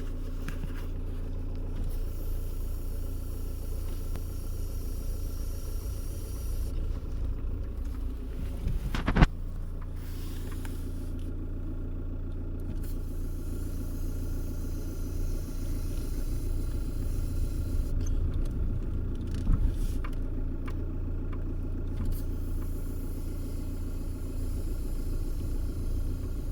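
Renault Scenic 1.9 dTi diesel engine idling steadily, with a short sharp sound about nine seconds in and a smaller one about twenty seconds in. These fit the suspect noise made on releasing the brake pedal, which the owner likens to an intake of breath.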